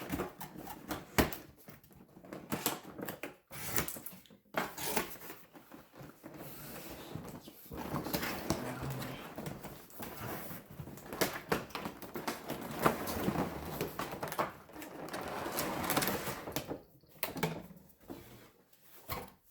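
A train set being unboxed: a cardboard box and its packaging rustled and handled, with scattered clicks and knocks.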